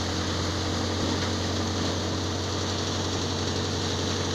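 Paddy threshing machine running steadily: a constant low machine hum under an even rushing noise as its blower throws straw out of the chute.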